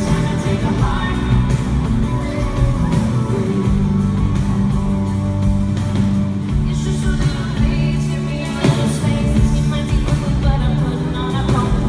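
Live country-pop band music: a man singing with an acoustic guitar over a band with a strong, steady bass.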